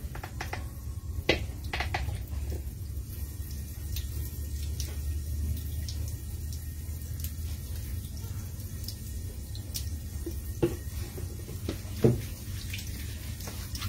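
Water running and splashing as a dog is bathed, with a few scattered drips and short sharp knocks.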